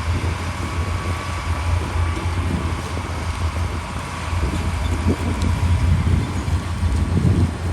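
Heavy diesel earthmoving machinery running with a steady low rumble.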